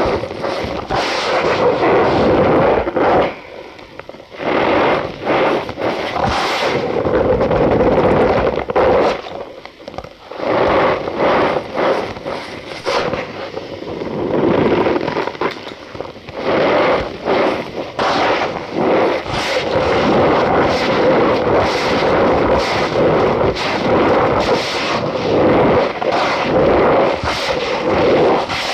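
Cornstarch powder being squeezed and crushed, a dense run of crunchy squeaks that goes on nearly without a break, pausing briefly about four and ten seconds in.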